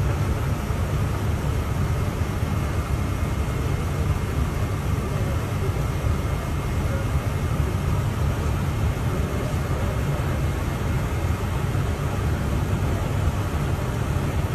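Steady low rumble with a hiss over it, unchanging throughout: the ambient noise inside a parked Boeing 777X flight deck.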